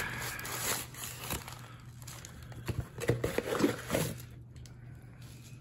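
Packing material crinkling and rustling as it is pulled out of a parcel by hand, with scattered sharp handling clicks and a few louder crackles about three seconds in.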